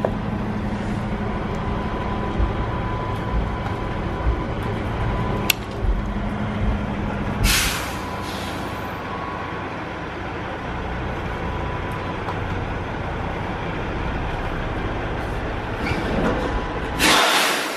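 Semi truck's diesel engine running at low speed while backing, a steady low hum. Two short hisses of air from the truck's air brakes, about 7.5 s in and again near the end.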